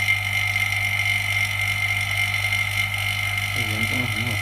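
Steady electrical hum with a high-pitched whine above it, and a short murmur of a voice near the end.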